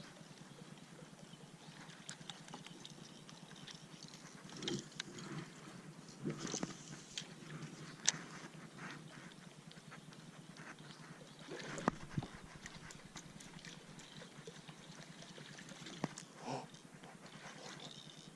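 Scattered light knocks and clicks with a few brief splashy swells: fishing gear being handled in a kayak on the water.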